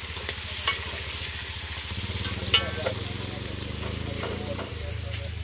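Bacon frying, with a steady sizzle. A few light clicks come through it, the sharpest about two and a half seconds in, over a low steady hum.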